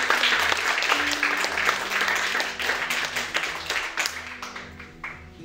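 Audience applauding, the clapping dying away about four seconds in, with an acoustic guitar playing softly underneath.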